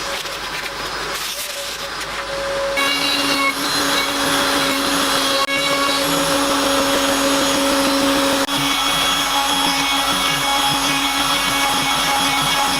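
Mekanika CNC router milling an ash bowl blank: a steady, loud machine noise from the spindle, with a dust-extractor-like hiss. About three seconds in, a second steady tone joins and the sound gets louder, as the cut takes load.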